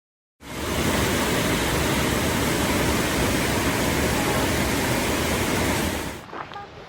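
Steady, loud rush of a waterfall, even in tone, starting abruptly about half a second in and cutting off about six seconds in.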